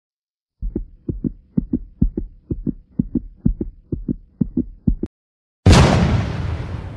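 Intro sound effects: a fast heartbeat of paired low thumps, about two beats a second, then a brief silence and a sudden loud bang that dies away over about a second and a half.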